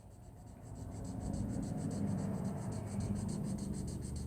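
Colouring strokes rubbing back and forth on a colouring-book page, a steady scratchy sound that grows louder about a second in.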